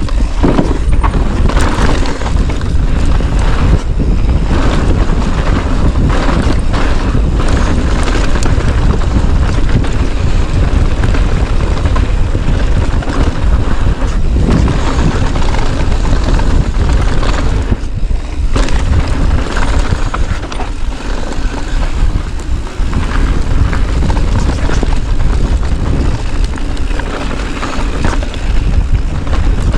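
Wind buffeting the action-camera microphone on a fast ride down a dirt trail, with a steady low rumble and frequent short rattles and knocks from the bike and tyres over rough ground.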